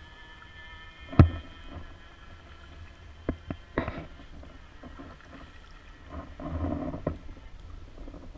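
Paddling sounds from an inflatable kayak: paddle blades dipping and splashing, with a sharp knock about a second in that is the loudest sound, a few lighter clicks a little later, and a longer swell of water noise near the end.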